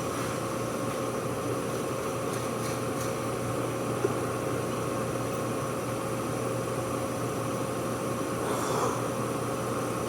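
Brake lathe running steadily while skimming a brake rotor disc: an even machine hum with a steady whine, whose higher overtone fades out about eight seconds in.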